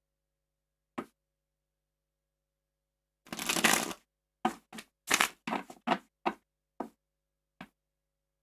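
A tarot deck being shuffled. A single card click, then a riffle about three seconds in that lasts just under a second, followed by about nine short slaps and taps as the halves are pushed together and the deck is squared.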